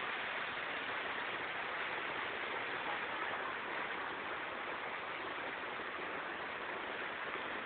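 Steady hiss of a small waterfall spilling down a rock face into a river pool.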